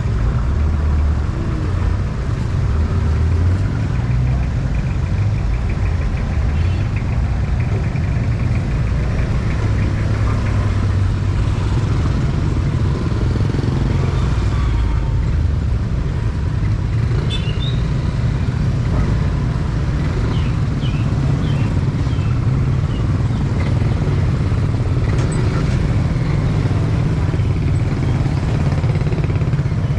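Motorcycle engine running with a steady low rumble and road noise.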